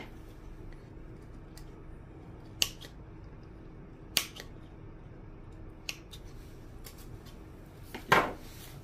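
A few sharp clicks and clacks of hand tools and plastic parts being handled on a workbench, spaced a second or two apart, the loudest and longest about eight seconds in, over a faint steady hum.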